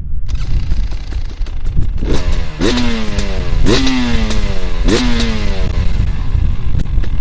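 300 TPI fuel-injected two-stroke engine, fitted with an FMF expansion pipe and an Akrapovic silencer, idling with a ragged popping and then blipped three times, each rev rising sharply and falling away over about a second. Wind rumbles on the microphone throughout.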